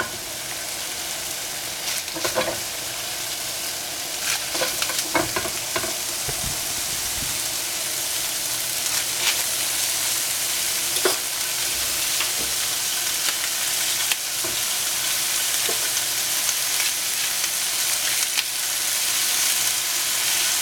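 Chopped Swiss chard sizzling in a hot frying pan of oil, a steady hiss that slowly grows louder as more pieces fall in, with scattered short clicks of a knife cutting the stalks over the pan.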